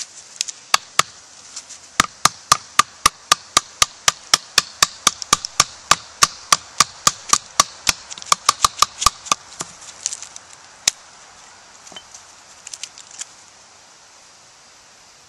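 A wooden baton repeatedly striking the spine of a knife, batoning it down through a dead arborvitae branch to split it: sharp knocks about four a second, then a few scattered knocks near the end as the split finishes.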